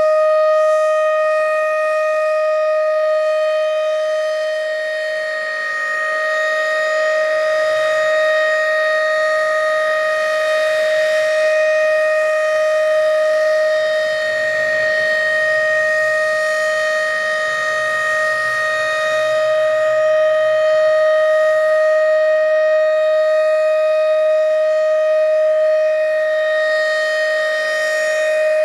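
Federal Signal RSH-10 outdoor warning siren sounding a steady full-alert tone at full speed, extremely earsplitting from directly beneath. It holds one pitch, with its loudness swelling and dipping slowly.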